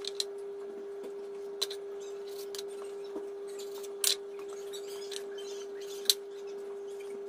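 Kitchen knife cutting rolled warqa-pastry briouats on a bamboo cutting board: a few sharp taps of the blade against the board, the last two the loudest, over a steady hum.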